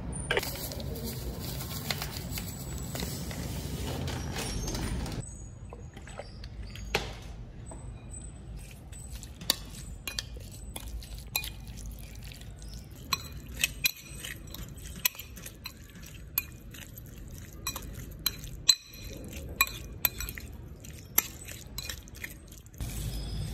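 A utensil clinking and scraping against a glass mixing bowl as shredded chicken is tossed in sauce, with wet squelching of the coated meat. The clicks come sharp and irregular, several a second, after a steady hiss during the first five seconds.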